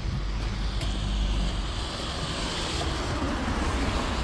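A car passing on a rain-soaked road: the hiss of its tyres on the wet asphalt swells from about a second in, peaks midway and fades away, over a steady low rumble.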